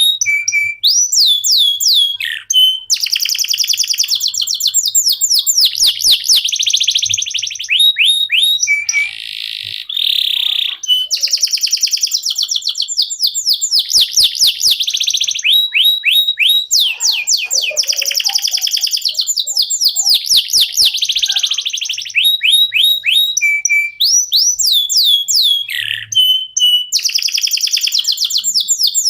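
Canary singing continuously in long, fast trills: rapid runs of repeated sweeping notes, high-pitched, broken by a short buzzy phrase about nine seconds in.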